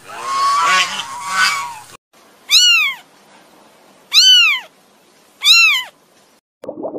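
Animal calls: two lower pitched calls in the first two seconds, then three separate high calls, each about half a second long, that rise and then fall in pitch, spaced a little over a second apart.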